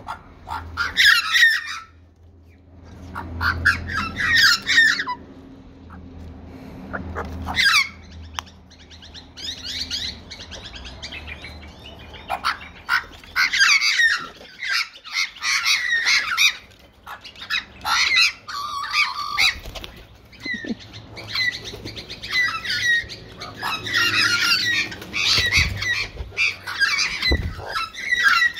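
Australian magpies calling at close range in repeated bursts of a second or two, several birds together, with short pauses between bursts.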